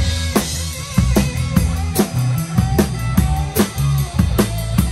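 Live band playing with a steady beat, heard from right beside the drum kit: the kick drum, snare and cymbals are the loudest, with low bass notes and guitar lines underneath.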